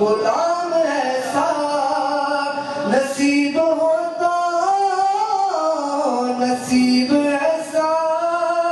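A man singing a naat, an Urdu devotional poem in praise of the Prophet, solo, in long held notes that slide up and down in pitch.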